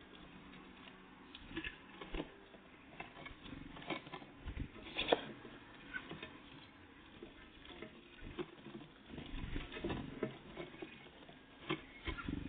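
Irregular light tapping and clicking of great tits and blue tits pecking at seed and hopping about at a bird feeder, with the loudest tap about five seconds in.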